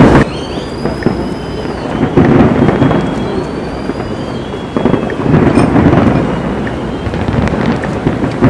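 A large fireworks display: loud, continuous rumbling booms of shells bursting, rolling like thunder, with a crackling wash over them and a few faint whistles. The heaviest booms come right at the start, about two seconds in and about five seconds in.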